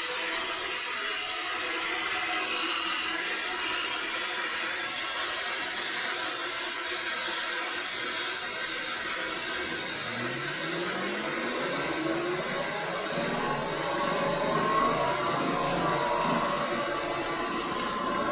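Pelton water turbine running: a steady rush of the water jet with a machine hum, and from about ten seconds in a whine that rises steadily in pitch.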